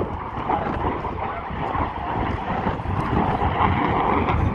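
Jet noise from a Saab 37 Viggen's afterburning turbofan as the fighter makes a pass, a dense, heavy sound that grows louder after about two seconds.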